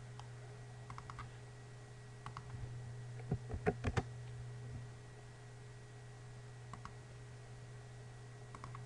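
Computer keyboard typing in short bursts, with a cluster of louder key clicks about three to four seconds in and a few stray clicks later, over a steady low hum.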